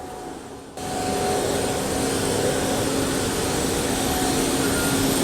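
The Airbus A220's auxiliary power unit running: a steady turbine whine over a rushing exhaust noise. It gets suddenly louder about a second in.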